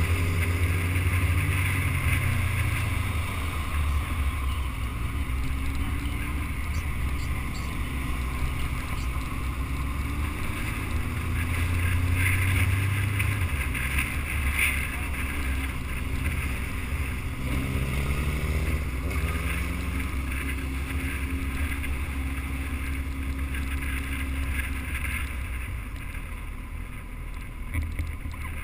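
Suzuki Hayabusa motorcycle being ridden at city speed, heard from a camera mounted on the bike: the engine's note drops in the first seconds and climbs again about two-thirds of the way through as the speed changes, under steady wind noise on the microphone.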